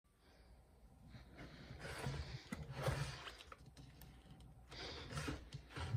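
Handling noise: the cardboard shop tag of a Gemmy Grave Ravers animated figure rustling, with irregular clicks and knocks as fingers fumble at the figure's plastic base where its try-me button sits.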